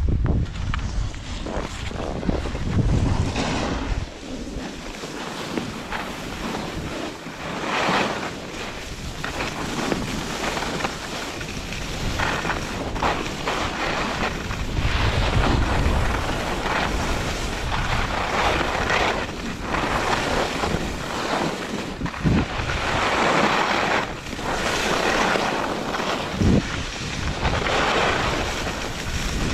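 Skis sliding and scraping over hard-packed groomed snow, the hiss swelling and easing with each turn, mixed with wind buffeting the microphone. A couple of short knocks sound in the last third.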